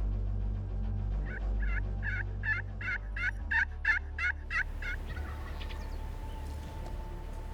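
Wild turkey yelping: a series of about ten evenly spaced yelps, about three a second, growing louder, starting about a second in and ending near the middle.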